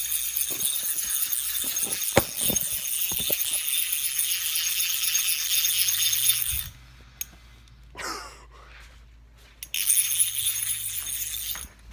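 Rapid, high metallic jingling rattle, running for several seconds, stopping, then starting again for about two seconds near the end.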